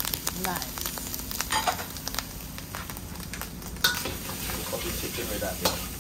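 Fried rice sizzling in a hot pot while it is stirred, with a metal spoon scraping and clicking against the pot and one sharper knock about four seconds in.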